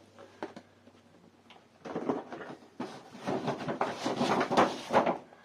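Handling noise from unpacking accessories: a few light clicks, then about three seconds of uneven rustling and scraping.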